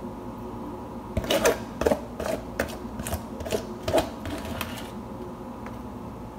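A metal spoon scraping and knocking against the inside of a glass mixing bowl to get thick brownie batter out. About ten quick strokes start about a second in and stop before the end.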